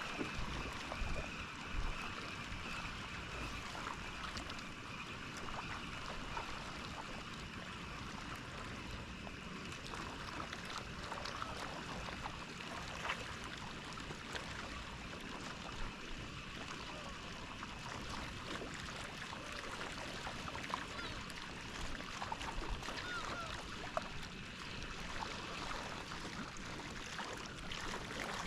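Water lapping and splashing against the shore or hull, with a steady background hiss and scattered faint clicks.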